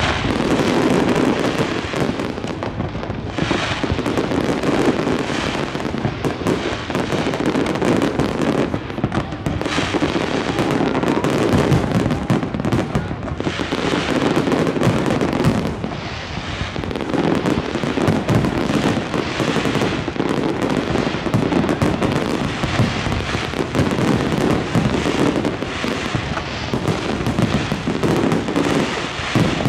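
Fireworks display: a continuous barrage of rapid, overlapping bangs and crackles with no pause.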